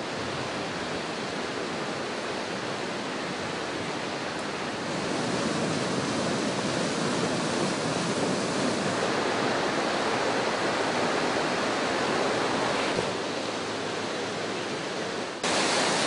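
Fast-flowing floodwater rushing steadily, heard across several cuts, growing abruptly louder near the end.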